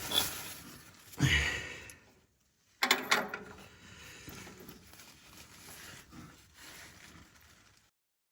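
Knocks, clicks and scraping of a wrench working the new oxygen sensor while it is threaded into and tightened in the exhaust pipe, with a heavier thump about a second in and sharp clicks about three seconds in. The sound cuts off abruptly near the end.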